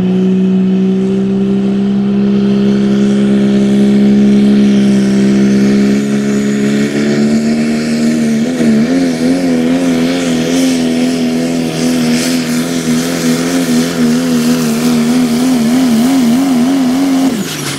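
Diesel 4x4 pull truck's engine running at full throttle as it drags the weight sled, pitch held high and creeping slowly upward. From about eight seconds in the pitch wavers rapidly, and near the end the engine note drops off as the throttle is released.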